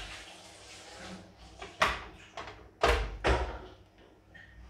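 Several knocks and thumps of objects being handled and set down on a workbench, with a few lighter clicks; the loudest come about two and three seconds in.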